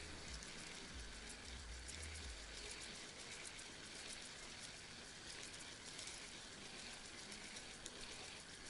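Faint, steady crackling hiss of outdoor ambience with many small scattered ticks, and a few low rumbles in the first two and a half seconds.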